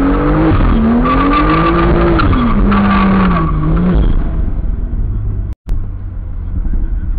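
Car doing a burnout in tyre smoke: the engine revs hard, its pitch rising and falling, while the tyres squeal. About four seconds in the revving dies away to a lower, steady engine rumble, and the sound cuts out for an instant near the end.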